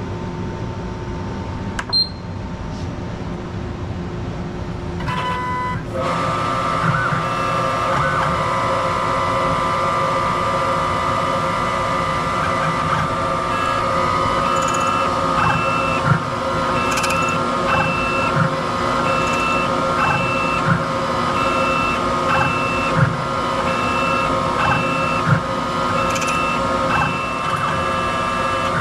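Ilco Idea computerized key machine running its cutting sequence on an S&G 6870 key blank: a low hum, then a steady motor whine that starts about six seconds in. Short repeating higher tones and light clicks run through the whine.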